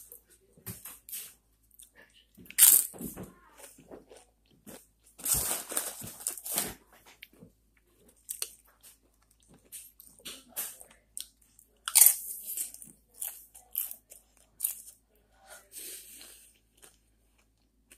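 Close-up crunching and chewing of tortilla chips, in irregular bursts of crackly crunches with quieter pauses between.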